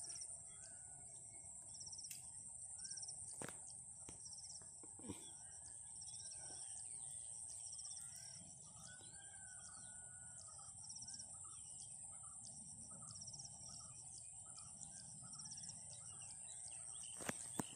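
Birds calling and chirping, with a short chirp repeating about once a second, over a steady high-pitched buzz.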